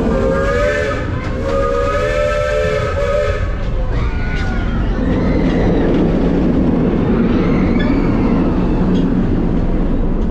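Coal-fired steam locomotive's whistle sounding twice, a short blast then a longer one, followed by the steady rumble and clatter of the train cars rolling along the track.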